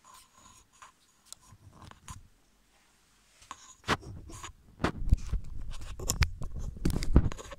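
Handling noise on the recording camera or phone: scattered faint taps and clicks, then from about four seconds in loud, close knocks and rubbing as the device is grabbed and moved.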